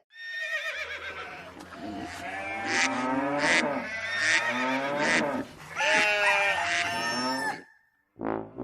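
Recorded farm animals calling: cattle mooing and goats bleating, long pitched calls that slide up and down. A steady low hum runs under them and cuts off shortly before the end.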